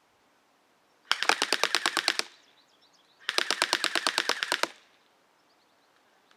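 AirsoftGI G4-A5 Dune Knight electric airsoft rifle firing two full-auto bursts, about a second and a second and a half long, at roughly ten shots a second. The rate of fire is slowed by a nearly dead battery.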